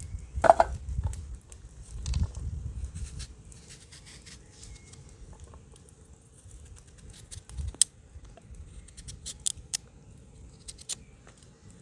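Large knife cutting and peeling raw pumpkin over a wooden board: scattered crisp cuts and clicks, with a louder knock about half a second in and a quicker run of sharp clicks near the end.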